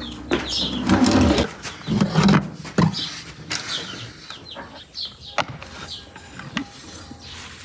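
Scraping and clinking of a metal pan being pulled across the brick floor of a wood-fired oven, loudest in the first couple of seconds, with birds chirping.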